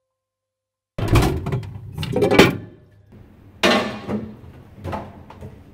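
About a second of silence, then knocks and clatter of bottles and containers being moved on the shelves of an open refrigerator. There is a sharp knock a little past halfway and a few lighter ones after it.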